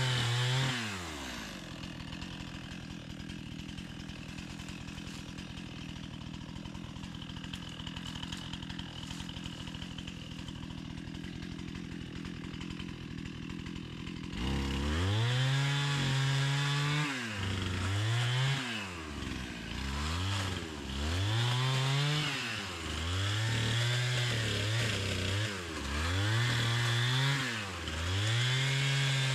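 Two-stroke chainsaw idling steadily, then revving up about halfway through and cutting wood, the engine pitch sagging under load and climbing back again and again. Its chain is dull and in need of sharpening.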